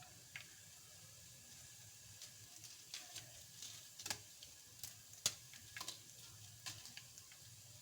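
Tempering spices (mustard seeds, cumin, urad dal, dried red chillies) frying faintly in hot oil in a kadai, with scattered pops and crackles, the loudest about five seconds in.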